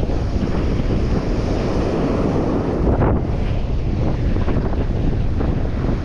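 Strong wind buffeting the microphone, over the steady wash of rough surf.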